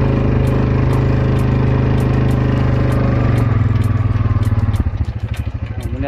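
Motorbike engine running steadily, then slowing to an even, pulsing idle about five seconds in.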